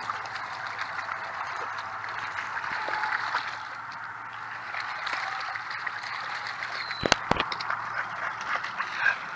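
Dogs wading through shallow lake water, with a steady watery splashing and small splashes as they step. Two sharp knocks come about seven seconds in.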